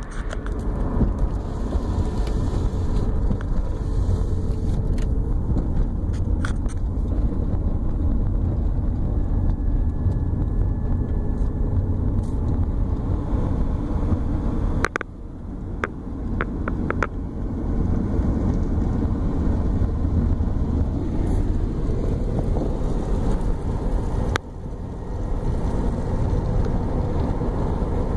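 Steady low road and engine rumble of a moving car, heard from inside the cabin, with a few short clicks about halfway through and two sudden brief drops in level.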